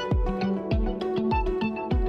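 Electronic music with a steady, fast beat: a deep kick drum and bass notes under sustained synth chords.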